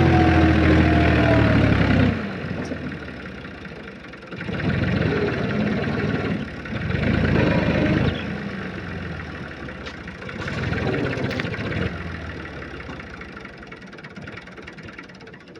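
Massey Ferguson 260 tractor's diesel engine working hard, loud for about two seconds, then dropping away. It surges again three times, each surge fainter, as the unladen tractor's wheels slip on wet ground.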